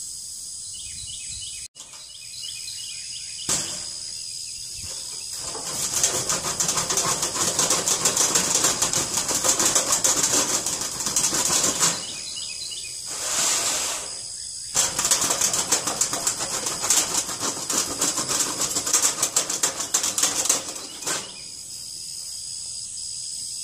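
Hammer tapping rapidly along the cut, rippled edge of a metal roofing panel to straighten it, in two spells of several seconds each.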